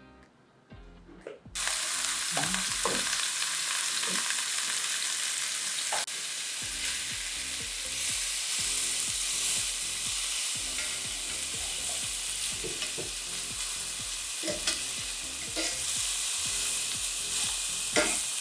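Marinated chicken strips sizzling in hot oil in a stainless steel pan. The sizzle starts suddenly about a second and a half in as the food meets the oil, then holds steady, with a few light clicks and knocks.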